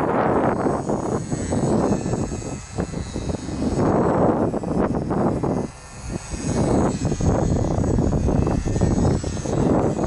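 Strong wind buffeting the microphone in gusts, easing briefly twice, over the faint, high, steady whine of a UMX Sbach 342 ultra-micro electric RC plane's motor and propeller.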